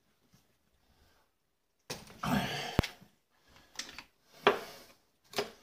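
Handling noise from taking apart a Ridgid angle grinder's head. About two seconds in there is a rattling scrape with a sharp click. Several short knocks follow as the grinding disc and flange parts are handled and set down.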